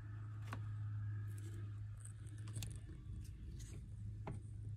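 Faint squishing and a few light clicks of thickened epoxy being worked into holes in a fiberglass hull with a stick, over a steady low hum.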